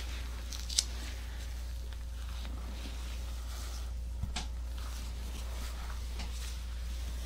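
Soft rustling of hands massaging a patient's back, over a steady low hum. A single sharp click comes about a second in, and a smaller double click about four seconds in.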